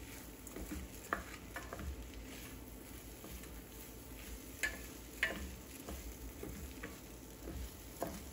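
Rice frying with shrimp and onion in a pot, sizzling quietly while it is stirred, with a few sharp clicks of the utensil against the pot. The rice is being toasted in the oil before the water is added.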